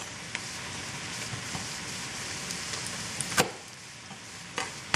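Steady sizzle of celery and onions frying in bacon grease in a pot. A sharp knock of a chef's knife striking a plastic cutting board comes about three and a half seconds in, with a lighter knock about a second later, as a garlic clove's root end is cut off.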